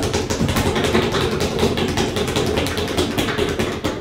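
Rapid, even drumming: a fast run of many sharp taps a second, like a drumroll.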